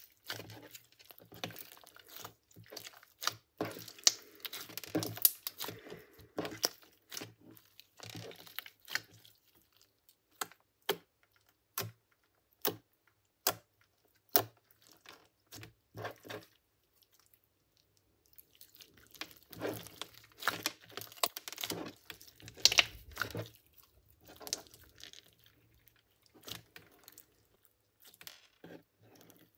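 Thick glossy slime kneaded, pressed and stretched by hand, giving quick sticky clicks and pops. The clicking thins to a few separate pops for several seconds in the middle, then picks up again.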